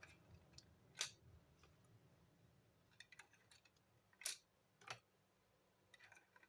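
Crossbow bolts being handled and fitted into an Auto-Quiver magazine: a sharp click about a second in and two more past the four-second mark, with a few light ticks between, over near silence.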